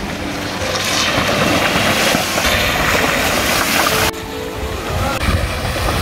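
Water rushing and splashing as mountain bike tyres plough through a shallow stream ford, with wind rumbling on the microphone. The hiss thins abruptly about four seconds in.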